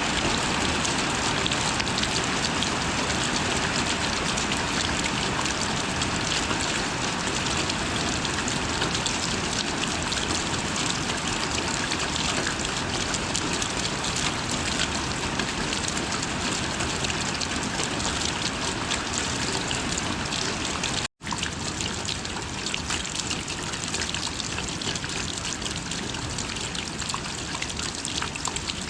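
Steady rain with running, trickling water. About two-thirds of the way through it cuts out for an instant, then carries on a little quieter.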